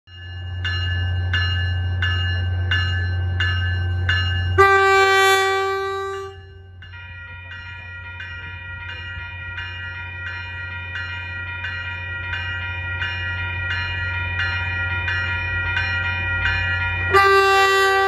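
Caltrain cab car 119's horn sounding two loud blasts, one about four and a half seconds in that lasts about a second and a half, and another starting near the end. Between and under the blasts, a bell rings steadily, about twice a second.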